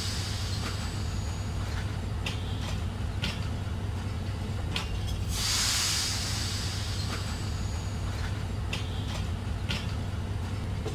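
Karakoram Express passenger coaches rolling past at departure speed: a steady low rumble with pairs of sharp clacks as the wheels cross rail joints. Two bursts of hiss come about six seconds apart, near the start and midway.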